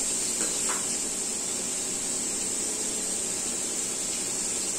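Diced ridge gourd sizzling steadily in hot oil in a kadai, an even hiss with no break.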